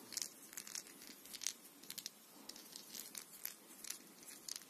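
Faint scratchy rustling as a thread-wrapped toy ball is rubbed over a cat's fur and the fabric sofa cover, in short irregular crackles, one a little louder about a second and a half in.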